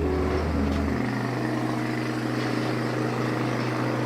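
Kawasaki 400cc motorcycle engine with an SC Project exhaust running steadily, its note stepping up in pitch about a second in and then holding.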